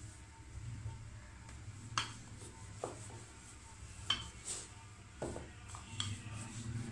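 A wooden rolling pin rolling out a small disc of dough on a countertop: a low steady rumble with several sharp knocks and clicks, about one a second.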